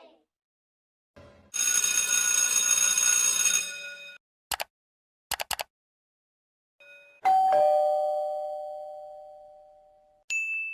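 A string of separate sound effects. A harsh ringing sound lasts about two seconds, followed by a few short clicks. Then a two-note doorbell chime, ding-dong, with a higher note then a lower one that fades out slowly. A single high ding comes near the end.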